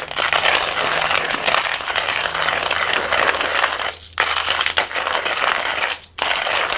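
Flafster manual coffee grinder being hand-cranked, its ceramic burr crunching coffee beans in a dense, steady crackle. The grinding stops briefly twice, about four and six seconds in, then picks up again.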